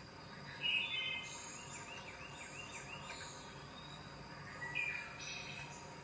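Wren singing: a sharp opening note about half a second in runs into a quick series of about six rolling notes, and a second, shorter phrase comes near the end.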